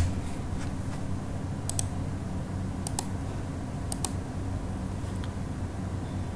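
Computer mouse clicks: a few short, sharp clicks, mostly in quick pairs of press and release, about a second apart, over a steady low electrical hum.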